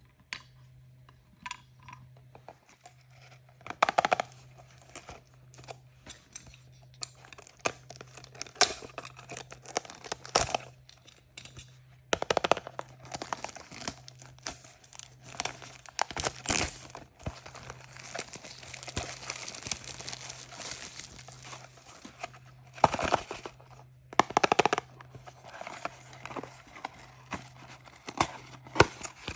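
Plastic packaging crinkling and being torn open by hand, irregular crackles and rustles with louder rips scattered through, over a faint steady low hum.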